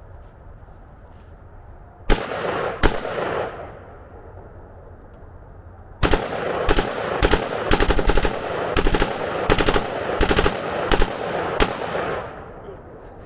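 Semi-automatic AR-15 rifle being bump-fired. Two single shots come about two seconds in, then a rapid, uneven string of shots runs for about six seconds, with the reports echoing briefly after each burst.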